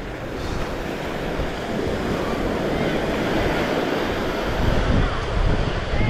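Small waves washing onto a sandy beach, with wind buffeting the microphone; the low wind rumble grows heavier about four and a half seconds in.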